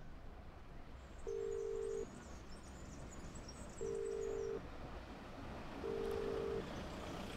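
Telephone ringback tone of an outgoing call ringing out: a steady single-pitch beep, three times, each about three-quarters of a second long with about two seconds between them.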